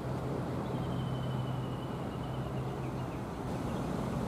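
Outdoor background noise: a steady rumble with a low hum that fades out about three seconds in, and a faint, thin high whistle lasting about two seconds from about half a second in.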